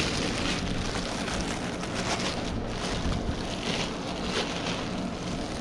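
Plastic shipping bag rustling and crinkling in irregular bursts as it is handled and pulled off a potted bush, over a steady rumble of wind on the microphone.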